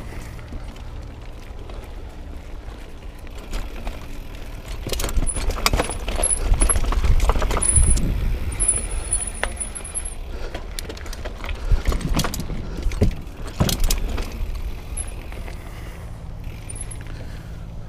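Mountain bike rattling and clattering over roots and rocks, with a low rumble and many quick knocks from the frame and chain. It grows rougher and louder about a third of the way in and eases off after the middle.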